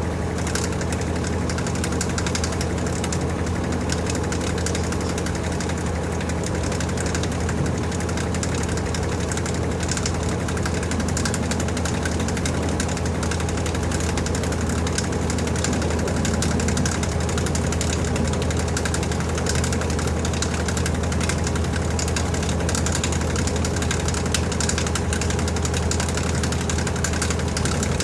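LG TurboDrum WT-R852 washing machine in its spin cycle: the drum turns at a steady speed, with a constant motor hum and whirring.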